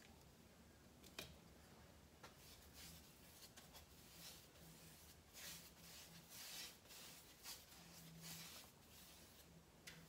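Faint, irregular swishes of a paintbrush laying oil-based oak stain onto a wooden stair riser, with a single sharp click about a second in.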